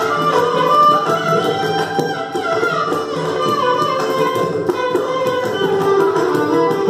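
Two violins playing a Carnatic melody together in raga Andholika, with sliding ornamented notes, over steady mridangam and kanjira strokes in Adi tala.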